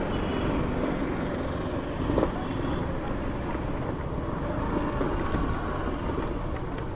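Steady road and wind noise from riding a two-wheeler, with wind buffeting the microphone. A brief knock about two seconds in.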